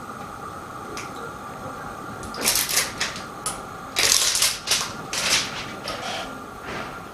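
Small plastic mold parts and film being handled and fitted together: a few short clicking, rustling noises about two and a half seconds in and again around four to five and a half seconds, over a steady faint hum.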